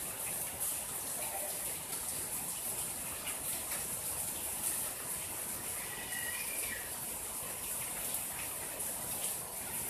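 Steady rain falling on a garden: an even hiss with scattered patter of drops.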